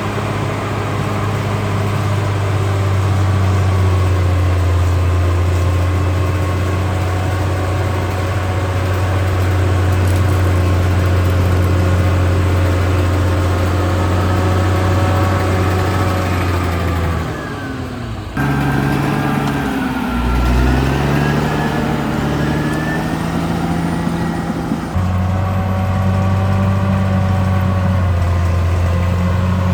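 Caterpillar D6R XL bulldozer's diesel engine running steadily. Its pitch sags a little over 17 s in, then abruptly changes, wavering down and up for several seconds before steady running resumes about 25 s in.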